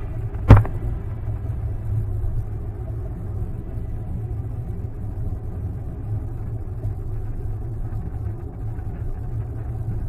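Dodge Nitro driving on a snow-covered highway, heard from inside the cabin: a steady low rumble of engine and tyres on the slushy road. A single sharp knock sounds about half a second in.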